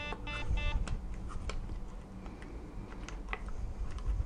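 The VFC Avalon Samurai Edge airsoft rifle's digital fire-control unit gives a quick run of short electronic beeps as its battery is plugged back in. The beeps signal that a charged battery has been connected and tell its voltage. Scattered light clicks from handling the gun follow.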